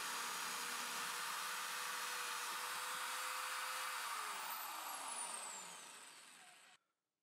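Benchtop drill press running steadily with a hole saw boring through melamine-faced MDF. About four seconds in it is switched off, and the motor winds down in falling pitch, fading out just before the end.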